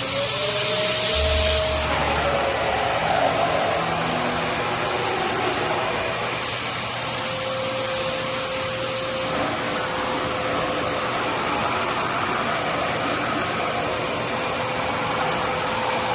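Vacuum cleaner running steadily: a rushing of air over a motor whine. The whine dips and recovers twice in the first couple of seconds, then settles at a slightly lower pitch. The rushing grows brighter for a few seconds midway.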